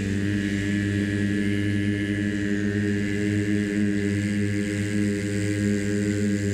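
A low, steady chanted vowel held unbroken on one long exhale: the drawn-out ü (umlaut U) of the Taoist qigong liver healing sound Xu.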